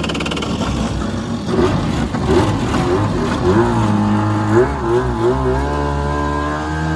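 WaveRunner engine driving a homemade jet jon boat, running loudly; its pitch rises and falls several times in quick throttle blips, then settles at a steady speed.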